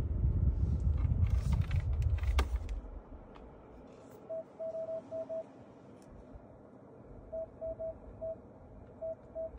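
A low rumble with a few clicks for the first three seconds or so. Then short electronic beeps from the Hyundai Tucson's climate control panel as its temperature control is pressed repeatedly, in quick runs of several beeps each, all at the same pitch.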